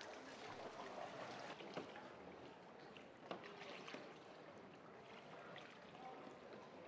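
Faint lapping and swishing of canal water around a rowed gondola, with a couple of soft knocks about two and three seconds in.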